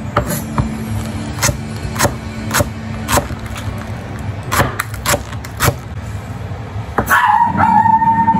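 Chef's knife chopping vegetables on a wooden cutting board: about ten separate, irregular knocks of the blade on the board. A high, slightly falling whine starts about seven seconds in and runs on to the end.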